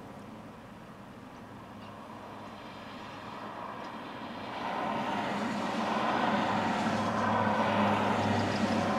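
Highway traffic: cars passing by, with a vehicle coming up and passing close, getting louder from about halfway through.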